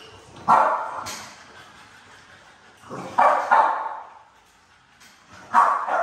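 American bully dogs barking: short barks coming in pairs, with a pause of about two and a half seconds between pairs.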